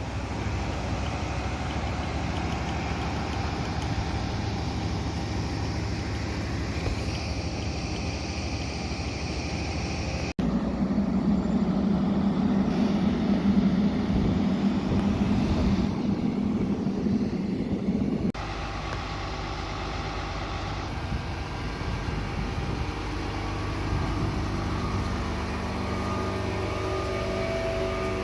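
Fire apparatus engines running steadily, in three separate stretches that switch abruptly about 10 and 18 seconds in; the middle stretch is louder with a strong low hum.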